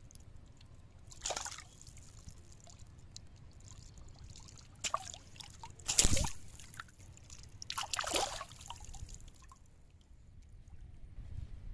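Water splashing and sloshing in four separate bursts, the third the loudest.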